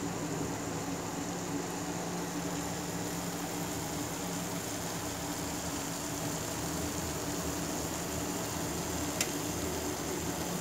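Steady hum and hiss of a running fan motor, with one faint click about nine seconds in.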